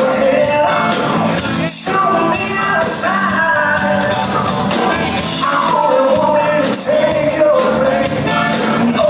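Blues-rock band playing live and loud in a large hall, with a melodic lead line that bends in pitch over the guitars, bass and drums.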